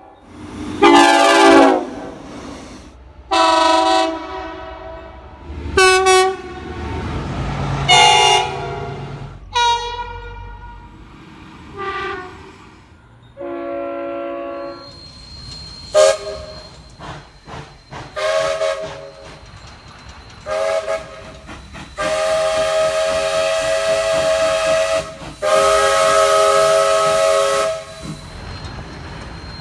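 Locomotive air horns sounding a long series of separate blasts, each a chord of several notes: a string of short blasts and toots, then two long blasts near the end.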